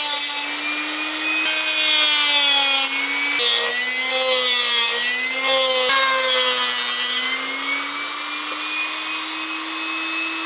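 Dremel rotary tool with a cutting disc running at high speed and cutting into a plastic carburetor isolator block. Its steady high whine sags in pitch and recovers several times as the disc is pressed into the plastic and eased off, over a rasping hiss of the cut.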